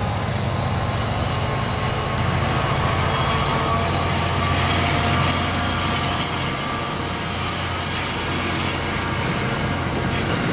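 Steel wheels of NJ Transit Comet passenger coaches rolling past on the rails, with a steady low drone underneath, in a train hauled by a GP40PH-2A diesel locomotive.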